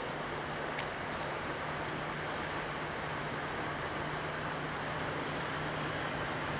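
Steady rush of river water flowing over rocks, with a steady low drone from a diesel locomotive hauling the passenger train on the far bank.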